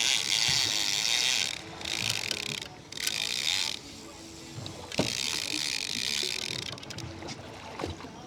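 Fishing reel being cranked in four bursts of whirring, each lasting one to two seconds with short pauses between, as the angler reels against a heavy fish.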